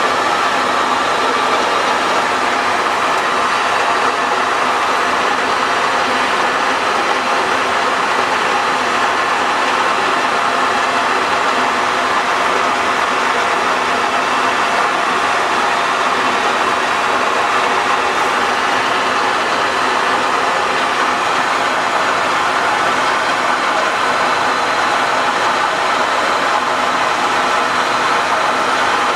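Romi-Bridgeport EZ-Path CNC lathe with its spindle running at steady speed: a loud, even whir and whine from the headstock drive, with many fine steady tones and no change in speed.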